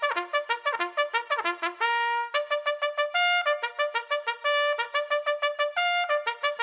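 Music: a single brass instrument, trumpet-like, plays a fast melody of short, crisply separated notes. A few notes are held briefly, about two, three and six seconds in.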